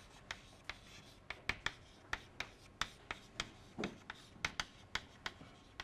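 Chalk writing on a chalkboard: an irregular run of sharp chalk taps and short scratches as letters are written by hand, several a second.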